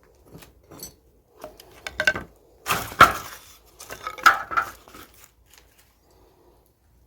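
Knocks and clatter of hard objects striking one another: a dozen or so uneven strikes over about five seconds, the loudest about three seconds in.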